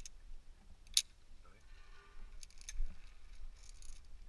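A few sharp metallic clicks and clinks, the loudest about a second in: climbing-harness hardware knocking against the steel safety cables of a rope course.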